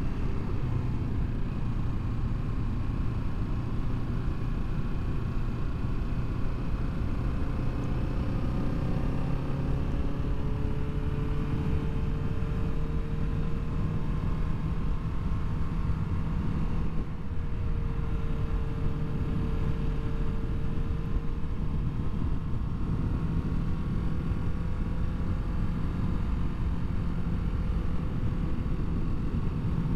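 Kawasaki Ninja 650's parallel-twin engine running steadily as the motorcycle cruises, over a constant rush of wind and road noise. The engine note steps up a little about ten seconds in.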